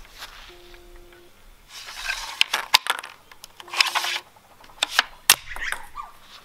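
Handling noise from a wooden rubber-band ping pong ball shotgun: short rustles and a series of sharp clicks and light wooden knocks. The sharpest click comes about five seconds in.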